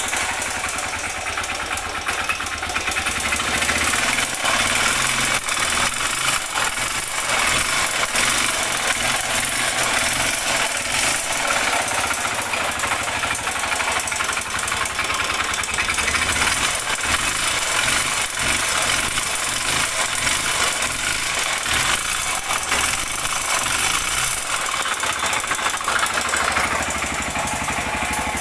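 Honda Bros 125 single-cylinder four-stroke engine running steadily with a knocking noise, which the owner puts down to a worn connecting rod (rod knock).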